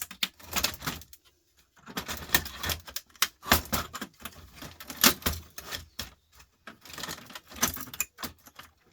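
Small metal parts and tools clicking and clattering in irregular clusters while a CD changer is taken apart by hand, with short pauses between.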